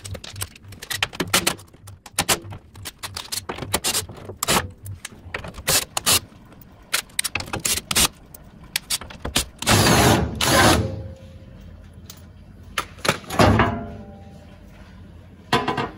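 Cordless drill with a socket bit undoing the bolts of a metal underbody cover: a run of quick clicks and rattles, then two louder whirring bursts, one about ten seconds in and a shorter one a few seconds later.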